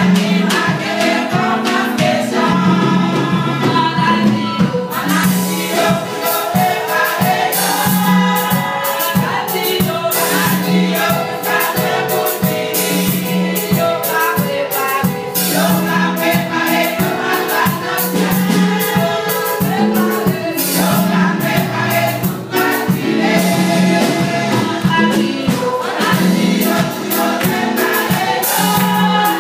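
Women's church choir singing a gospel song, joined about five seconds in by a steady beat of rhythmic percussion.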